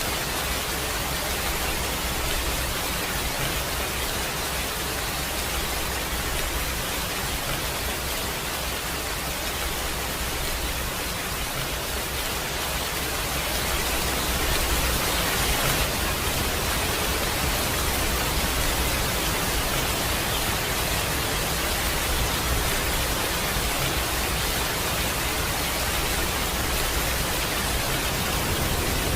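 Steady rain, an even hiss with no distinct drops or thunder, getting slightly louder about halfway in.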